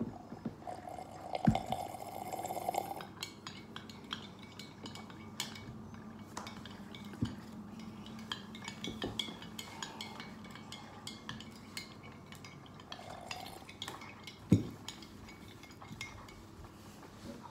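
Drinking glass knocking and clinking against a tabletop, with faint liquid sounds of drinking a thick homemade kefir yogurt. The loudest knock comes near the end as the glass is set down.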